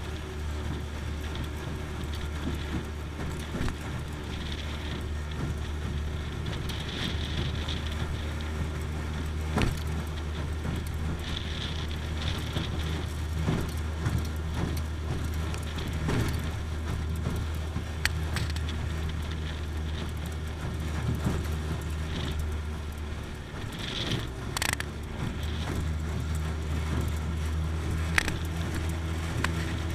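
Small boat's motor running steadily underway, a constant low drone, with a few sharp knocks as the metal hull slaps the choppy water.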